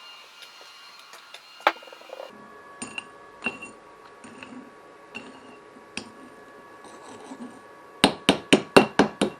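Hammer chipping slag off a fresh weld joining a nut to a steel plate: scattered light metallic taps with a slight ring, then a fast run of hard strikes, about four a second, near the end.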